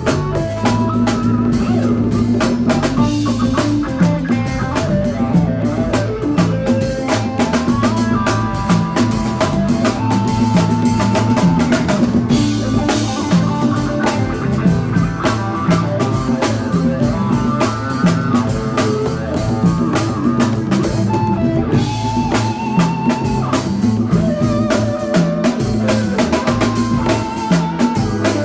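Live band music with a drum kit played hard over bass and guitar: a steady groove of kick drum, snare with rimshots and cymbals.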